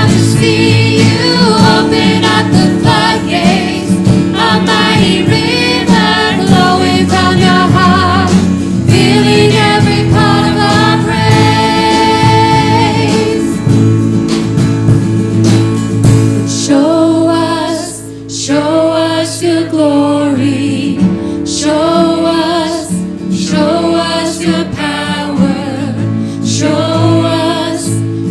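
A group of voices singing a worship song together in harmony, with a short break between phrases partway through.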